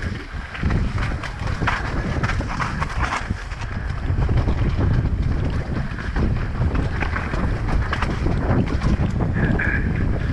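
Wind buffeting a helmet-mounted action camera's microphone as a mountain bike descends rocky trail at speed. A steady low rumble runs under many short knocks and rattles from the tyres and bike hitting rock.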